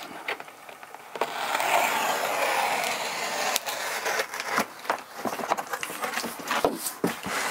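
Box cutter slicing through a cardboard mailer box, a steady scraping for a few seconds, then clicks and rustling as the cardboard flaps are pulled open.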